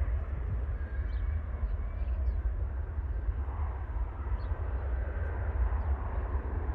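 Jet roar of an Embraer E195LR's twin turbofans, heard from a distance as the airliner climbs away after takeoff, under heavy, gusty wind rumble on the microphone.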